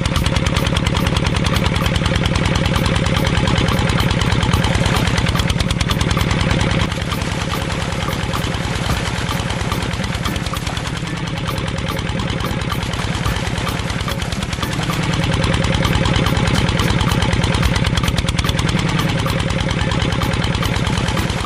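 Small model single-cylinder diesel engine running steadily with a rapid, even chugging, a little quieter for several seconds in the middle.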